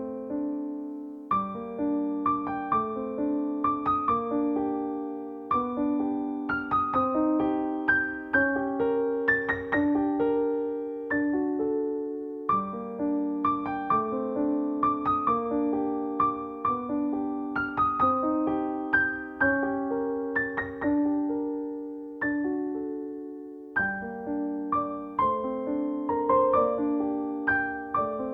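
Background music: a gentle solo piano or electric piano piece playing flowing arpeggiated notes that ring and fade.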